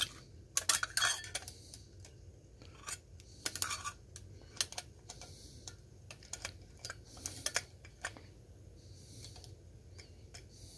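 Irregular small metallic clicks and taps of a bare ground wire and tools being worked under the ground screw at the back of an electrical junction box, with quieter stretches between them.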